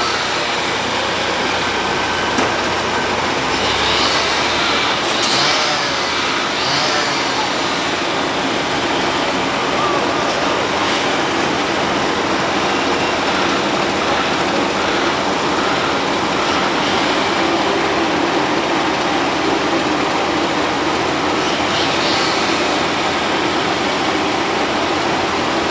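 Road planer (cold milling machine) running steadily, its engine and rotating cutter drum milling off the asphalt road surface in a loud, continuous mechanical din.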